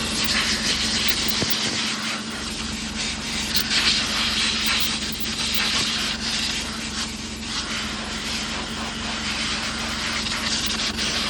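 Compressed-air blowgun hissing in uneven gusts as it blows dust out of a broom tractor's air-conditioning filter, over a steady engine hum.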